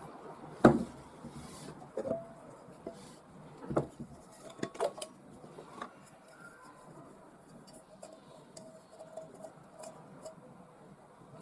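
A small metal tin and the small items inside it being handled, with a sharp knock about half a second in, then scattered clicks and light metallic clinks that ring briefly.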